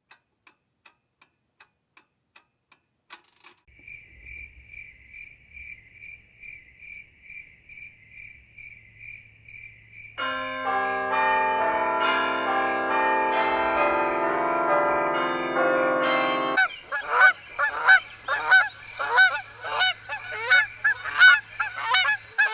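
Faint, evenly spaced ticking, then a high, fast-trilling ring, then a loud sustained chord of many held tones that cuts off suddenly about 16 seconds in. It is followed by rapid, repeated goose-like honking, several calls a second, to the end.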